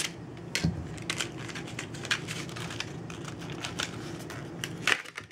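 A knife cutting a tab on plastic and cardboard product packaging, with irregular clicks, scrapes and crinkles as the packaging is handled, over a steady low hum that stops near the end.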